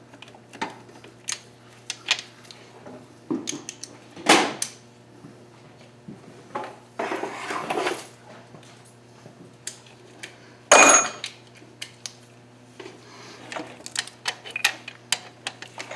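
Metal tools and engine parts clinking and clanking as they are handled, with a brief scraping rush around seven seconds in and a loud metal clank that rings on just before eleven seconds. A steady low hum runs underneath.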